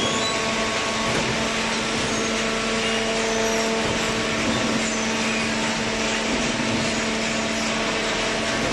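Small hydraulic cardboard baler running: a steady machine hum with a constant noise over it, without change.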